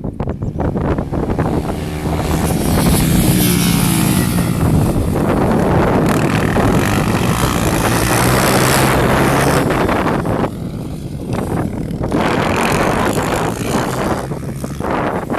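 Single-cylinder four-stroke dirt bike engine running hard under load, louder through the middle and easing off briefly about ten seconds in, with wind and rushing noise around it.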